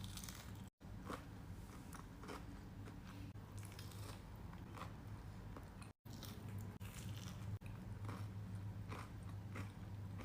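A person biting into and chewing a fried potato-and-meat kibbeh, with soft, irregular crunches over a low steady hum. The sound cuts out briefly twice.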